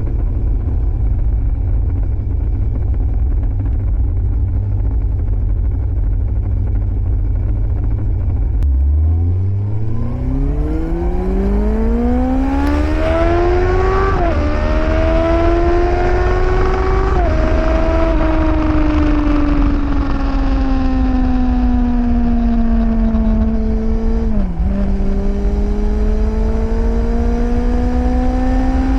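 Yamaha FZS1000 Fazer's carburetted inline-four through a Scorpion aftermarket exhaust, ridden: steady at first, then revving hard through the gears about nine seconds in, with two quick upshifts, before easing off and falling in pitch, with one more quick gear change near the end.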